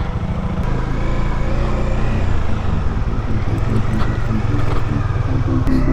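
Motorcycle engine running under way, its note wavering with the throttle and growing slightly louder.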